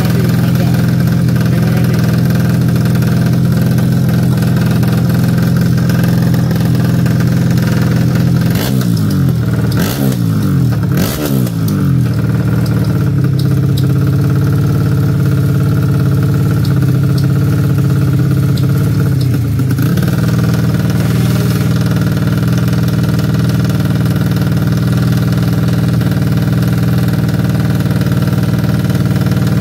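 Drag-racing motorcycle engine running steadily at the start line, blipped up and down several times from about nine to twelve seconds in.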